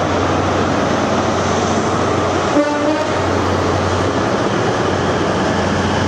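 High Speed Train (InterCity 125) passing close along the platform: the Class 43 diesel power car, then its coaches, with a loud steady rumble of engine and wheels on the rails. A brief clatter with a short tone comes about two and a half seconds in.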